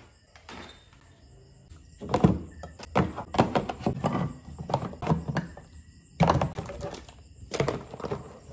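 Tin cans knocking and clunking against each other and against a plastic storage bin as they are packed into it, in irregular runs of knocks starting about two seconds in.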